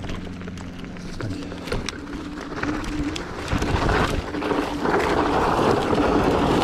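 Zero 10X electric scooter's motor whining steadily under throttle, with the tyres on a dirt trail. From about halfway in it gets louder, rising to a rushing noise as the rear wheel spins in loose dry dirt.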